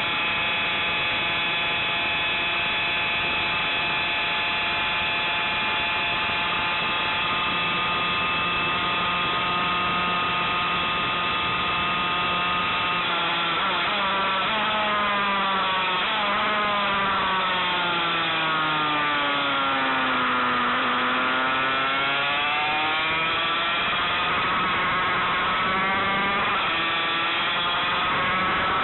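Yamaha TZ250 two-stroke twin racing engine recorded on board, with wind rush. It holds a steady high rev for about thirteen seconds, then its pitch falls and climbs several times as the bike slows for the infield, lowest about twenty seconds in, and climbs again as it accelerates out.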